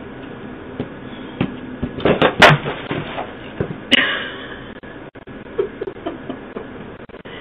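A person tripping and falling onto a concrete porch step, heard through a doorbell camera's microphone: a quick run of scuffs and thumps about two seconds in, the loudest part, then one more sharp knock a moment later and fainter shuffling as she lies on the ground.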